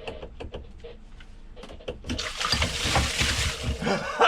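Seawater gushing in through a 2-inch through-hull hole in a sailboat's bottom as the old depth transducer is pulled out. A few small knocks come first, then a loud rush of water starts about two seconds in and lasts about two seconds.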